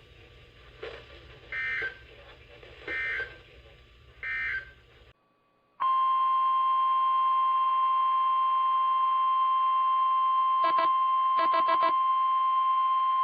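Emergency Alert System tones off NOAA Weather Radio. First come three short bursts of SAME digital data tones, about a second and a half apart, which close the warning that has just ended. Then, after a short pause, the steady 1050 Hz weather radio warning alarm tone sounds loud, with a few quick stuttering pulses in it about 11 to 12 seconds in.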